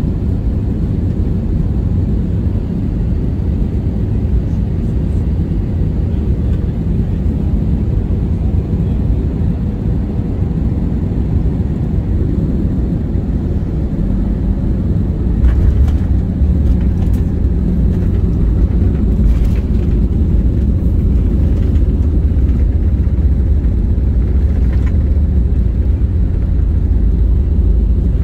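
Low, steady rumble of an Airbus A320-200 heard from inside the passenger cabin. About halfway through it grows louder, with a scatter of short knocks and rattles.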